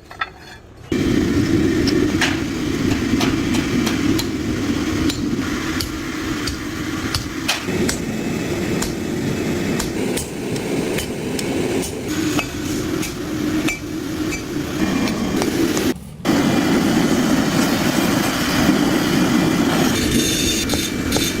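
Hand hammer striking steel at the anvil, repeated blows coming at irregular intervals over a steady low rushing noise.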